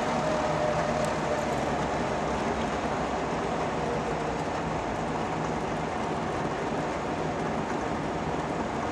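Inside the cabin of a 1972 Trabant P 601 under way: its two-stroke two-cylinder engine running steadily at cruising speed, over a constant rush of road noise.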